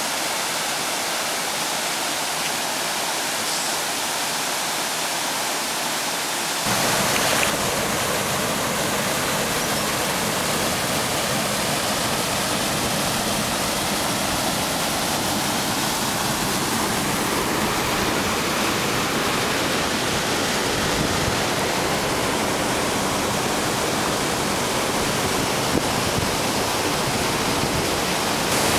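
Steady rush of a river waterfall and white-water rapids. About seven seconds in it changes abruptly to a slightly louder, deeper rush of fast water.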